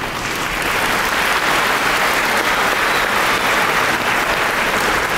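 A large audience applauding, swelling in the first second and then holding steady.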